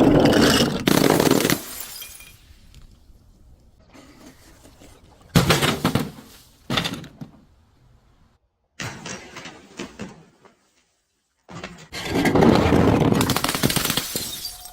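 Glass and other crunchy objects being crushed and breaking in several separate bouts: a loud one at the start, short bursts near the middle, and a long stretch of crunching in the last few seconds.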